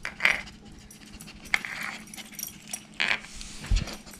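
Dog sniffing at objects on the floor: a few short, breathy sniffs, with light jingling of its collar tags.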